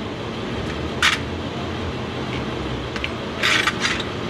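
A few short scrapes: one about a second in and two close together near the end, from hand work on the steering box mounting bolts at the truck's frame rail. They sit over a steady low background rumble.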